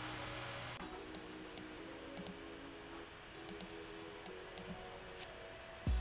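About a dozen sharp computer mouse clicks at irregular intervals, some in quick pairs, over faint background music.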